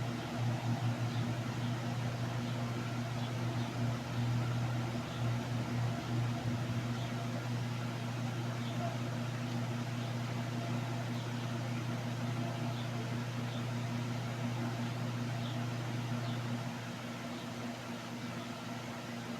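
Steady low mechanical hum, like an appliance or motor running, that drops a little in level near the end.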